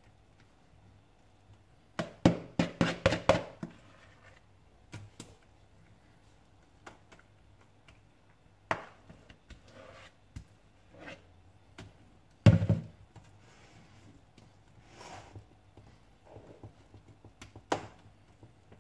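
A spoon or spatula scraping and knocking against a plastic mixing bowl and a metal springform tin as thick cheesecake filling is scooped in and spread. A quick run of about six knocks comes around two seconds in, a single loud knock near the middle, and soft scrapes in between.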